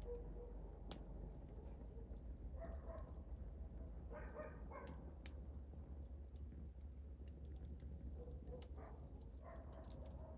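Wood fire crackling, with scattered sharp pops over a low steady rumble.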